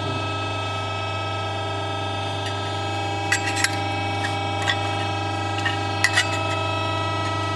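Steady hum of a hydraulic press brake's pump and motor running between bends. From about three seconds in come several light metallic clinks as bent sheet-metal pieces are slotted together by hand.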